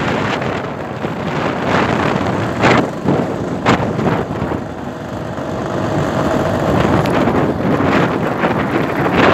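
Wind rushing and buffeting over the microphone on a moving Lambretta scooter, its two-stroke engine running under the wind noise, with a couple of sharp gusts about three and four seconds in.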